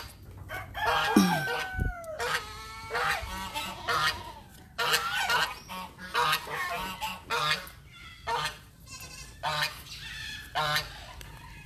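Domestic geese honking over and over, a flock calling noisily about once or twice a second.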